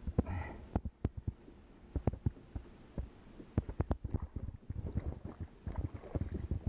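Irregular knocks and clicks, several a second, over a low rumble.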